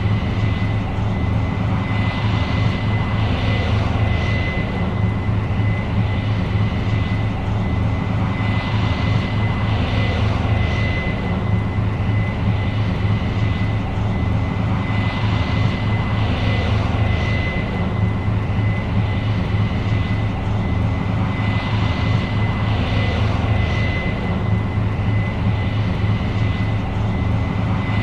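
New Holland CR 7.90 combine running steadily while harvesting corn: a deep engine drone with a constant high whine over it, and a rushing noise that swells and fades several times.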